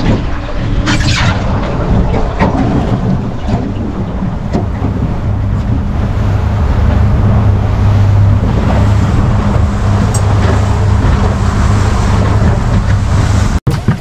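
Boat's outboard motor running at speed with a steady low drone, over the rush of wind and water from the hull and wake.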